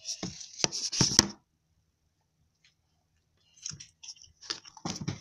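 Clicks, taps and rustling of a phone being handled close to its microphone. They come in two bunches, the first about a second and a half long, then a silent stretch of about two seconds before they start again.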